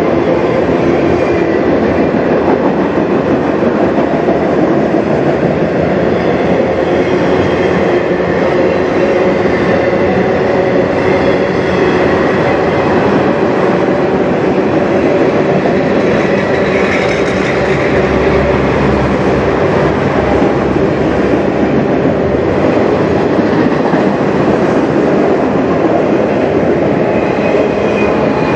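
Freight train of autorack cars rolling past steadily: a continuous loud rumble and rattle of steel wheels on rail, with faint steady ringing tones over it.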